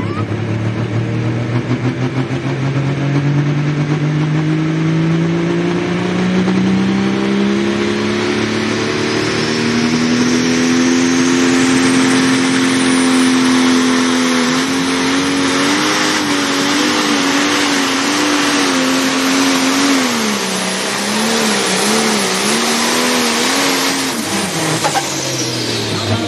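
Pro stock pulling tractor's turbocharged diesel engine at full power pulling a weight transfer sled. The engine note climbs steadily with a high turbo whistle rising over it. The revs then waver and wobble up and down under the growing load, and near the end the engine and whistle wind down together as the pull ends.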